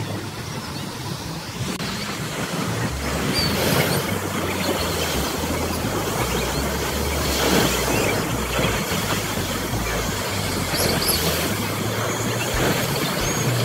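Choppy surf breaking and washing up the shore, with wind buffeting the microphone as a steady low rumble.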